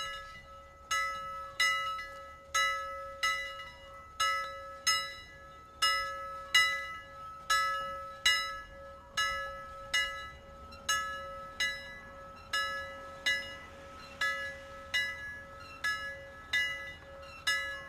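Bell-like chimes playing a slow melody, one note struck roughly every two-thirds of a second, each ringing out and fading, over a steady held tone.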